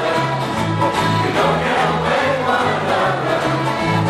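A group of voices singing a song together in unison, with instrumental accompaniment whose low bass notes step in an even rhythm, about two a second.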